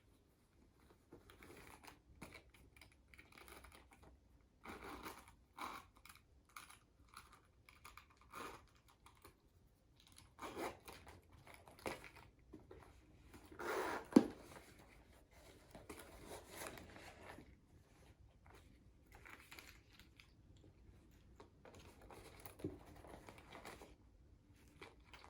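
Paper and packaging rustling and crinkling in scattered short bursts as the box and wrapping are handled, with one sharp click about fourteen seconds in.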